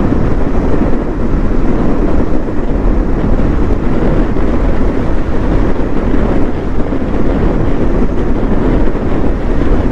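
A KTM Duke 390 motorcycle riding at road speed: heavy wind buffeting on the microphone over the engine and road noise, a steady loud rumble.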